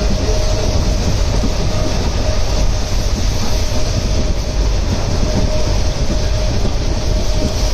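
Express passenger train running at speed, heard from an open coach doorway: a steady rumble of wheels on the rails with a constant hum.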